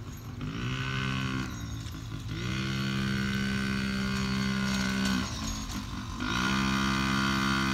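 Yamaha PW50 minibike's small two-stroke single-cylinder engine revving up and holding a steady pitch under throttle, easing off about a second and a half in and again about five seconds in, and picking up again each time.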